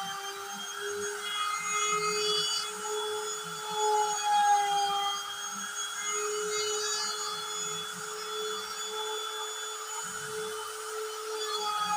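CNC router spindle running with its bit cutting a groove in a laminated MDF panel: a steady high whine mixed with cutting noise, swelling louder about four seconds in.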